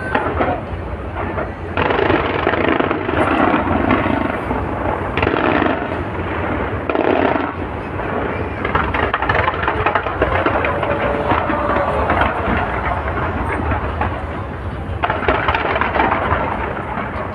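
Fireworks going off in quick succession, bursts of crackling and booming that come and go in waves, with crowd voices underneath.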